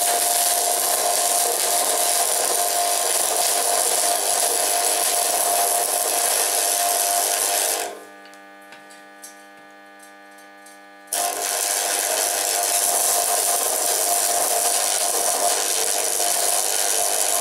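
Stick (arc) welding a steel fitting onto a steel propane bottle: the arc crackles and hisses steadily. About 8 seconds in the arc goes out for about three seconds, leaving a steady mains hum, then it is struck again and crackles on.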